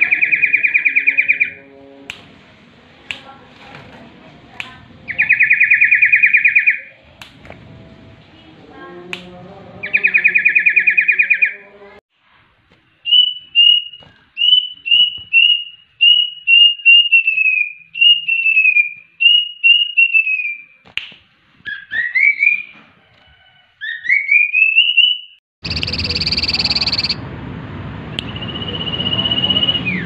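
Caged common iora (cipoh) singing mimicked calls. First comes a loud buzzing trill, three times about five seconds apart. After that a run of short falling whistles like a plaintive cuckoo's (kedasih) call, then rising slurred whistles, and near the end a steady high whistle over a noisier background.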